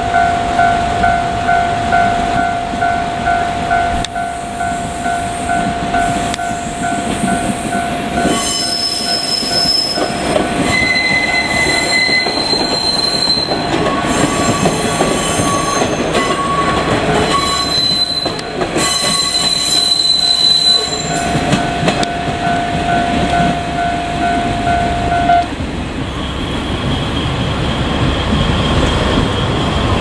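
Level-crossing alarm ringing steadily while a two-car KiHa 47 diesel railcar set rolls slowly past with its engines running. From about 9 to 21 seconds in, the wheels squeal in high, shifting tones. The alarm stops suddenly a little after 25 seconds in, as the train clears the crossing.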